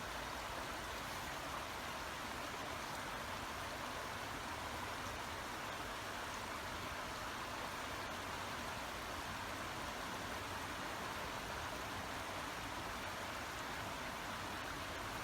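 Babbling brook, its water running with a steady, even rush.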